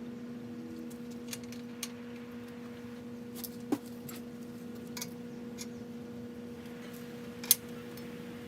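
Scattered light metallic clicks and taps of bicycle parts being handled during a rebuild, with two sharper clicks near the middle and near the end, over a steady low hum.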